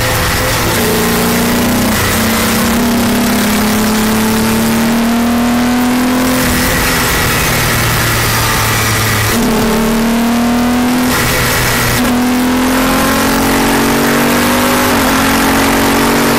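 Race car engine heard from the open cockpit under hard acceleration, its pitch climbing steadily and dropping back at each gear change several times, over steady wind rush.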